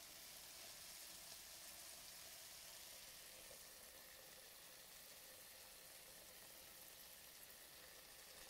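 Steak and potatoes frying, a faint steady sizzle.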